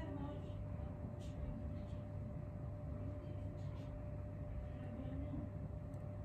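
Steady low background rumble with a faint constant hum and a couple of faint soft ticks: room tone.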